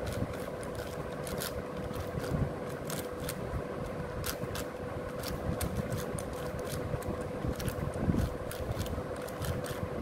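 Plastic 6x6 speed cube being turned rapidly by hand; the layers click and clack irregularly several times a second. A steady low hum runs underneath.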